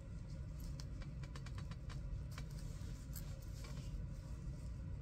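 Soft rustling and small ticks of cloth being handled and hand-sewn, loosest around the middle, over a steady low hum.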